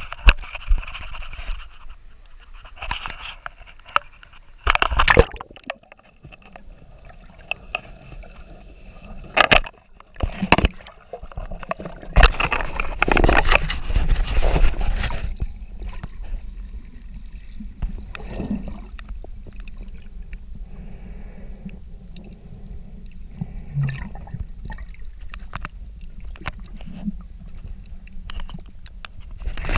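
Water sloshing and gurgling around a snorkeller's camera at the surface, with sharp knocks and scrapes as it is handled. About halfway through, once the camera is under water, this settles into a steadier, muffled underwater rumble.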